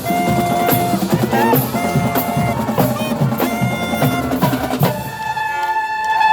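High school marching band's drumline playing a cadence on snare and bass drums, with the horns coming in on long held notes about five seconds in.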